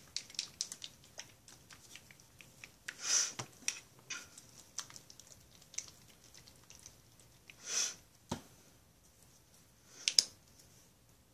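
Small handling noises of craft-paint bottles on a plastic-wrap-covered cutting mat: scattered light clicks and rustles, with two brief louder rustles about three and eight seconds in. A sharp double click about ten seconds in as a bottle's cap is snapped open.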